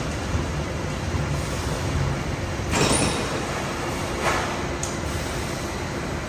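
Steady industrial machinery noise with a low hum, broken by two short hissing bursts about three seconds in and again a second or so later.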